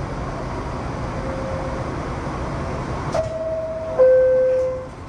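New York City subway car's door-closing chime: two steady tones, a higher one and then a louder, lower one that fades. Under it is the steady hum of the stopped train's motors and ventilation.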